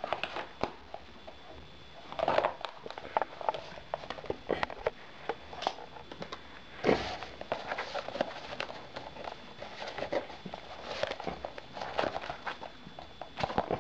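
Handling noise from a black tablet case as a tablet is fitted into it: scattered taps, clicks and rubbing, with a sharper knock about seven seconds in.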